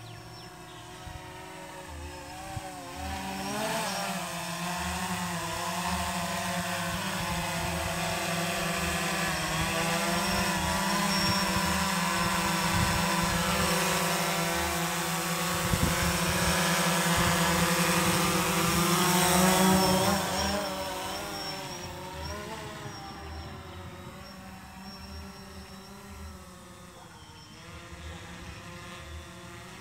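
DJI Phantom 3 Standard quadcopter's propellers and motors whirring, the pitch shifting as it holds position close by. It is loudest through the middle, then fades in the last several seconds as the drone climbs away.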